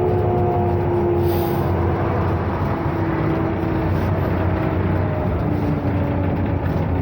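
Ikarus 260 bus's diesel engine running, its pitch sinking slowly as the bus slows, with a short hiss about a second in.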